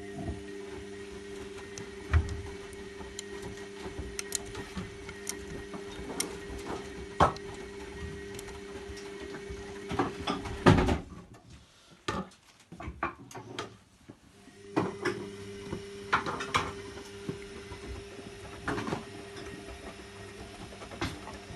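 Zanussi Lindo 100 washing machine tumbling a cotton wash: a steady motor hum with scattered clicks and knocks from the drum. About halfway through, the motor stops for about three seconds, then starts turning the drum again.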